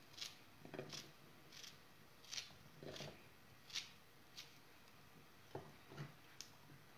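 Kitchen knife cutting chunks off a raw zucchini held in the hand: about a dozen short, crisp cuts, irregularly spaced roughly half a second to a second apart, a few with a duller knock.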